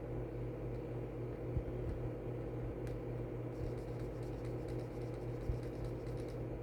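Steady low room hum, with faint pen scratching and a couple of soft knocks as an amount is written on a paper savings tracker.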